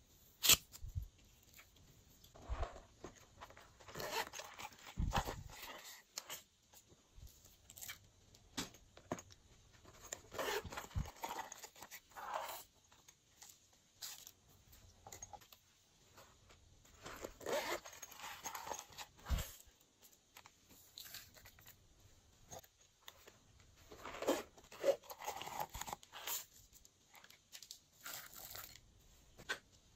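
Small plastic confetti, sequins and flakes being handled and sprinkled onto slime in a glass dish: light rustling and crackling in bursts of a few seconds with pauses between, and a few sharp clicks.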